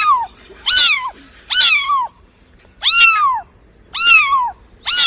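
A cat meowing over and over, five meows about a second apart, each high-pitched and rising then falling.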